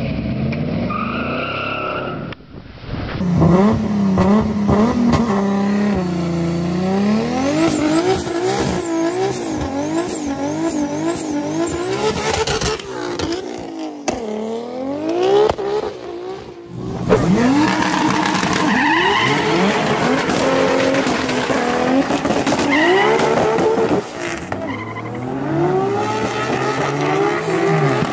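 Engine-swapped performance cars revving hard in a series of short clips, the engine pitch rising and falling over and over, with tyre squeal as the rear tyres spin and smoke in burnouts.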